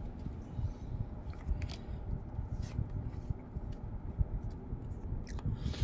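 A Pokémon booster pack being opened and its cards pulled out: short, scattered crinkles and clicks from the foil wrapper and the cards, over a low steady background rumble.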